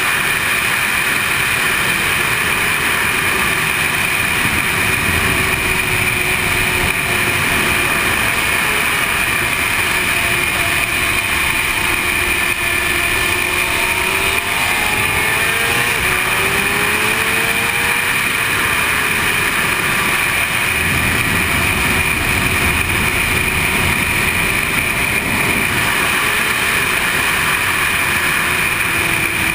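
Sport motorcycle engine running at speed, its pitch rising and falling several times with the throttle and gear changes, under a steady rush of wind over the microphone.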